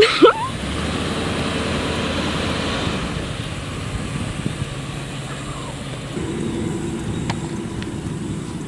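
A motor vehicle running near the barn, with a steady engine drone that becomes clearer about six seconds in.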